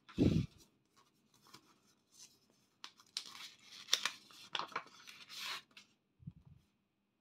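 A thump on the table right at the start. A few seconds later comes crisp crinkling and rustling of paper as a red paper envelope's flap is opened and a banknote is handled. A soft thud follows near the end.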